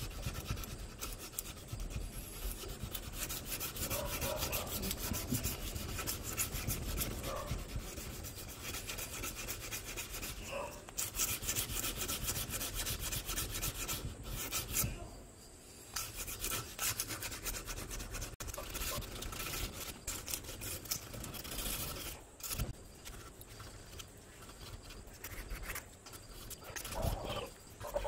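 Hand sanding the edge of a zelkova wood knife handle with a strip of abrasive paper: quick back-and-forth rubbing strokes, with a short pause about halfway through.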